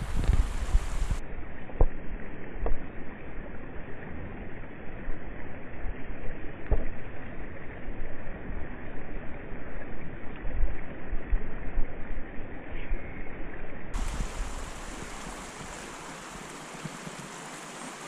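Steady rushing of a shallow river's current flowing over rocks, with wind gusts rumbling on the microphone.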